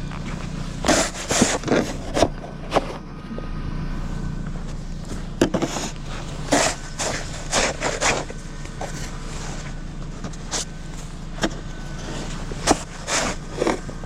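Snow shovel scraping and striking packed snow in irregular strokes, about a dozen in all, over a steady engine hum.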